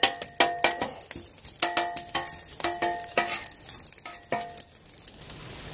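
Spatula blade chopping turkey bacon against the steel top of a Blackstone 17-inch griddle: quick sharp taps, each ringing briefly, over the sizzle of the frying bacon. The taps come in quick runs and thin out near the end.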